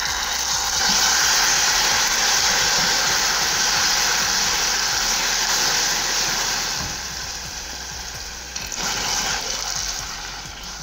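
Hot caramel in a saucepan sizzling loudly as water is added and stirred in with a wooden spoon. The hiss eases off after about seven seconds as the bubbling settles.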